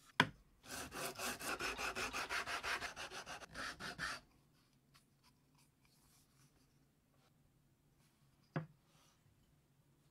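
A sharp knock, then a wooden sapele spokeshave handle rubbed quickly back and forth on sandpaper, about seven strokes a second for three to four seconds, followed by quiet with a single click.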